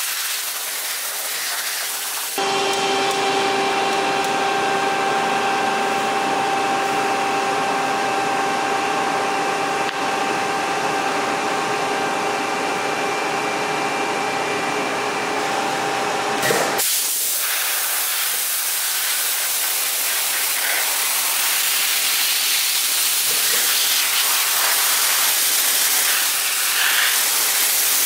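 ColdJet Aero2 PCS 60 dry ice blaster nozzle blasting pellets in a steady, loud hiss. A steady hum joins in about two seconds in and cuts off suddenly about two-thirds of the way through, leaving the hiss alone.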